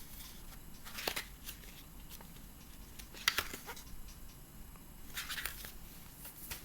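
Paper rustling as the pages of a small paperback activity book are turned and handled, in a few brief rustles about one, three and five seconds in.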